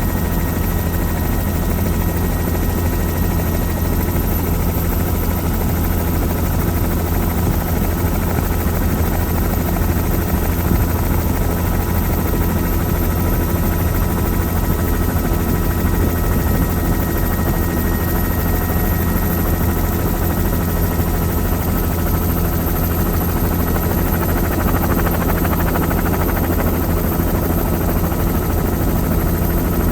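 Helicopter in flight, heard from aboard: a loud, steady drone of rotor and engine with a deep low rumble, unchanging throughout.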